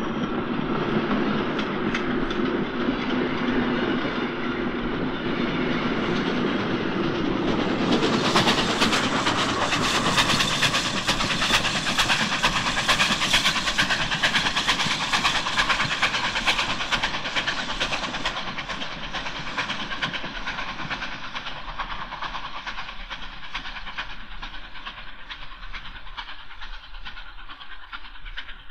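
Steam locomotives, tank engines and a 2-8-2, working hard as a heavy passenger train climbs away from a station with a banking engine pushing. The exhaust beats and wheel noise swell to their loudest about eight seconds in as the engines pass, then die away gradually as the train recedes.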